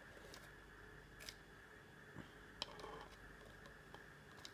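Near silence, with a few faint, sharp clicks and taps from metal feeding tongs handling a roach inside a plastic tarantula enclosure, the loudest about two and a half seconds in.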